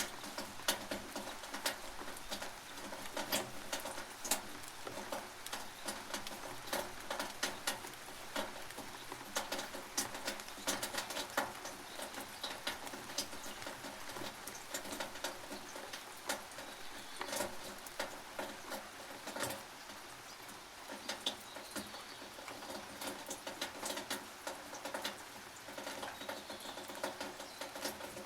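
Rain on a tin roof heard from beneath: a steady hiss of rainfall with many irregular, sharp drops and drips pattering on the metal.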